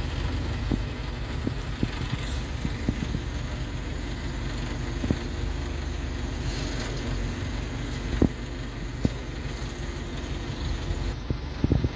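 ACE Hydra pick-and-carry crane's diesel engine running steadily while the hydraulic control levers are worked under a load of about 6 tonnes, with occasional short clicks and a few louder knocks near the end.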